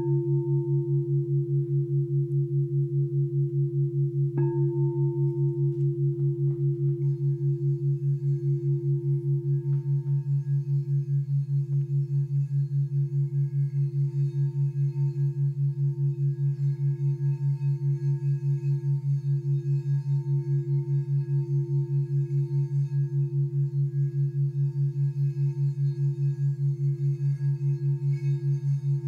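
Crystal singing bowl struck at the start and again about four and a half seconds in, then rubbed around the rim so it keeps ringing as one steady tone with overtones. Under it runs a steady, rapidly throbbing low background tone meant for brainwave entrainment toward a relaxed alpha state.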